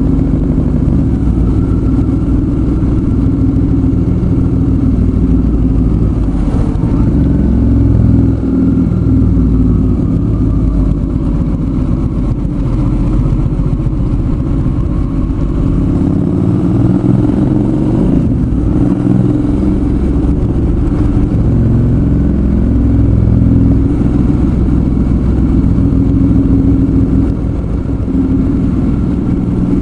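Suzuki V-Strom 650's 645 cc V-twin engine running under way, its pitch rising and falling repeatedly as speed changes.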